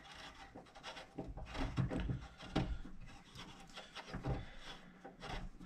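Faint, scattered clicks and scraping of an Allen wrench turning a screw loose in a metal fuse box.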